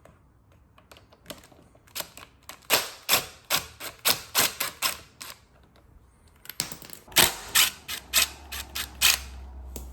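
Irregular sharp metallic clicks and clacks of a hand tool working on the crank as the old crank arm is taken off the motor spindle, one or two a second. A low hum joins near the end.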